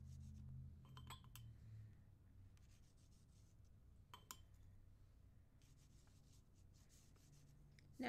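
Faint scratching and rubbing of a pencil on paper, with two light clinks of the pencil against a small glass jar of coffee paint, about a second in and just past four seconds.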